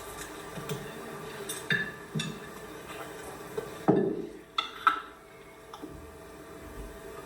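Dishes and cutlery clinking and knocking in irregular short strikes, with a heavier knock about four seconds in and two ringing clinks just after it.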